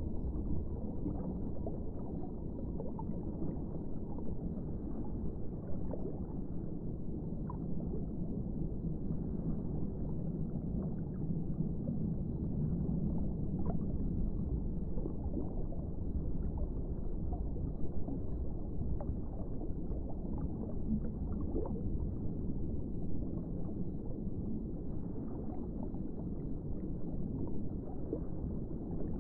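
Muffled underwater water ambience: a steady low rumble with scattered faint clicks and gurgles.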